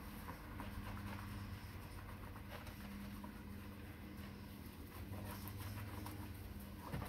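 Sponge scrubbing a small dog's wet, shampooed fur: soft irregular rubbing and squishing, over a low steady hum.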